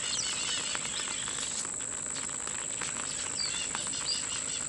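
Steady high-pitched insect drone, with light rain pattering in scattered faint ticks and a few short bird chirps a little past the middle.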